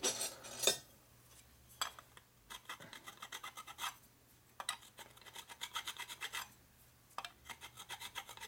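Small hand file rasping over the edge of an aluminium piston crown in three runs of quick short strokes, about five a second, after a few handling knocks at the start. The file is knocking the burrs off a sharp spot on the crown that could act as a hot spot.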